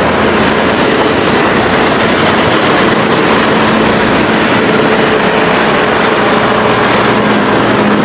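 Heavy vehicle on the move: a steady, loud rumble and rushing noise with a faint low hum under it.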